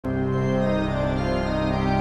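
Organ music: sustained chords that change slowly, coming in abruptly at the very start.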